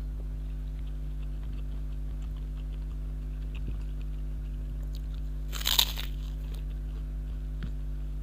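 Eating sounds: one loud crunch of a bite into crisp fried food about two-thirds of the way in, with faint chewing clicks around it. A steady low electrical hum runs underneath.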